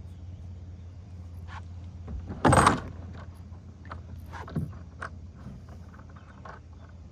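A hooked fish thrashing at the water's surface during the fight, one loud brief splash about two and a half seconds in, among small clicks and rattles of fishing tackle over a steady low hum.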